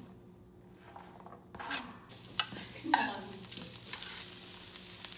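A few knocks and clatters as vegetables and chicken go into a nonstick frying pan, then a steady sizzle of frying that builds up over the last couple of seconds.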